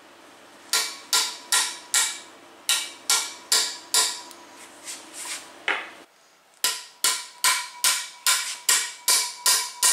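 Sharp metallic taps, about two or three a second, each with a short metallic ring, as a hand tool works the cam plate bolts through the cam gear of a bare Ford 6.0 Powerstroke diesel block. There is a brief break about six seconds in.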